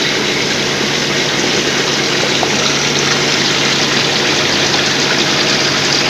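Steady loud rushing noise of factory-floor machinery in an induction-furnace shop, with a steady low hum underneath.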